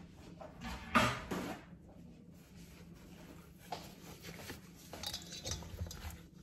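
Kitchen handling sounds: a sharp knock of a container set down about a second in, then a few light taps and clatters of bottles and dishes.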